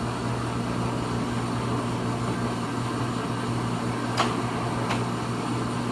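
Pratt & Whitney lathe with its 3-horsepower motor running steadily in a low gear, a steady hum, with two short clicks about four and five seconds in.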